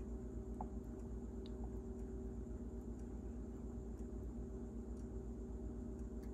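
Steady low electrical hum with a few faint, small clicks.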